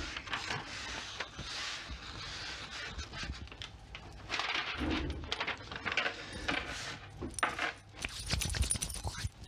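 Handling noise on a tabletop: a sheet of wax paper rustling and crinkling as it is moved and laid flat, mixed with light clinks and taps of small items being shifted.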